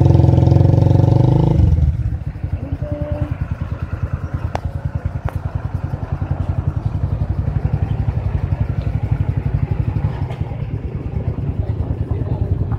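Motorcycle engine running on the move, with a loud pitched drone for the first second and a half, then settling into a steady low, rapid putter.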